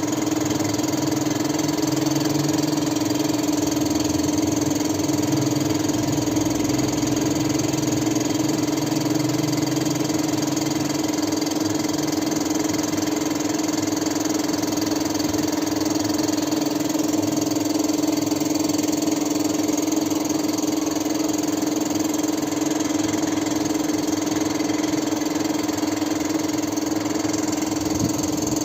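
A machine running steadily, a constant-pitched hum with no change in speed.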